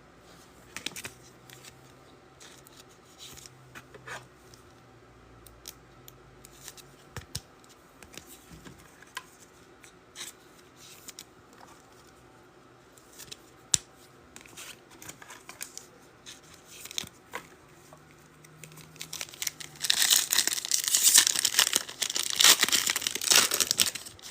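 Trading cards handled and sorted with light clicks and taps, then a trading-card pack wrapper torn open and crinkled for about four seconds near the end.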